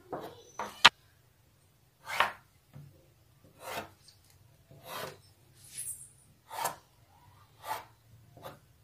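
Tailor's chalk scraping across lining fabric on a worktable as marking lines are drawn: a series of short scratchy strokes, roughly one a second, with a sharp tap about a second in.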